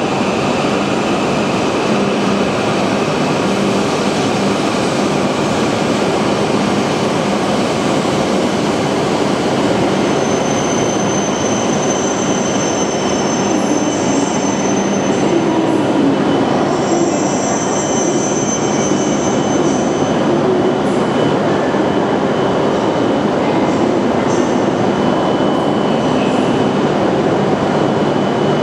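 E7/W7 series Hokuriku Shinkansen train running alongside the platform with a steady rumble and rushing hiss. A high-pitched wheel or brake squeal comes in about ten seconds in and fades out by about twenty seconds.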